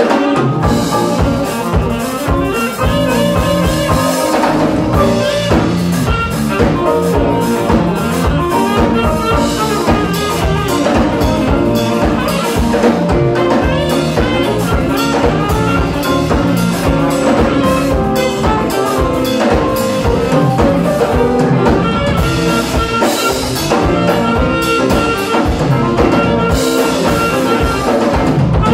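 Live jazz band playing: saxophone lead over electric guitar, bass, piano and a drum kit keeping a steady beat.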